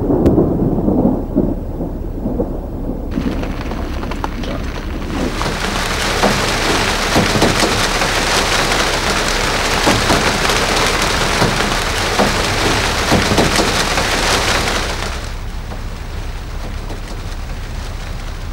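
Thunder rumbling, then heavy rain falling, a loud steady hiss that eases off near the end.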